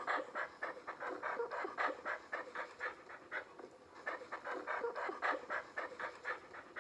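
A dog panting hard after running: quick, even breaths, about five a second.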